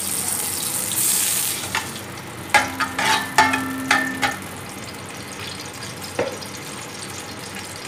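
Ghee sizzling in an aluminium pot. About a second in, chopped onions go in with a brief louder burst of sizzling. A metal slotted spoon stirring them clinks against the pot about five times, ringing, and knocks once more near the end.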